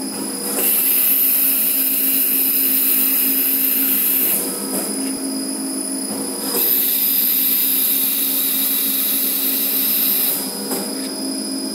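Automatic masking tape log cutting machine running with a steady motor whine, and twice a loud hiss lasting about four seconds, just after the start and again past the middle, as its blade slices through the turning tape log, with a quieter pause between cuts.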